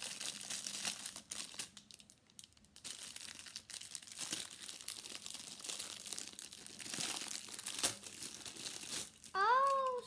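Thin plastic packaging bag crinkling and rustling in the hands as a pop-it fidget spinner is unwrapped, easing off briefly about two seconds in. Near the end a child's voice sounds a short gliding note, louder than the crinkling.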